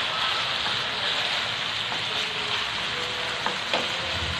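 Chicken pieces, carrot slices and baby corn sizzling steadily in a frying pan, with two sharp clicks of the stirring utensil against the pan about three and a half seconds in.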